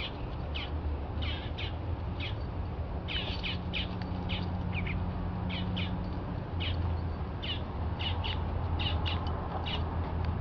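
Small birds chirping: a quick series of short, high chirps, two or three a second, over a low steady hum.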